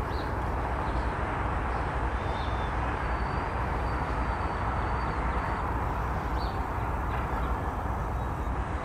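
Steady outdoor background rumble and hiss, with a few faint high bird chirps.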